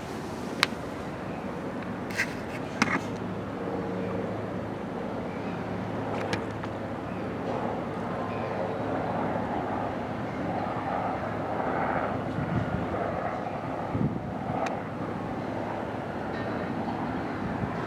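A steady low engine drone with a broad rumble, broken by a few sharp clicks and knocks.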